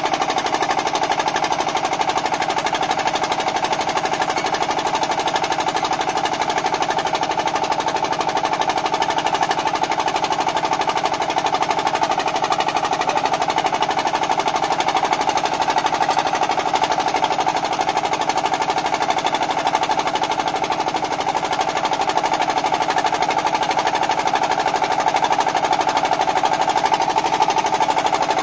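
Small engine running steadily at constant speed, a fast, even rattle with no breaks or changes.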